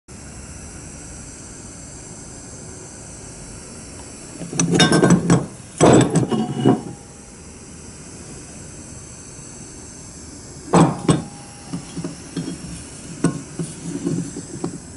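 Metal clanks and knocks as a hand-made metal hammer is picked up, handled and set down on a wooden workbench: two quick clusters of clanks around the middle, a sharp one a few seconds later, then lighter clicks, over a steady background hiss.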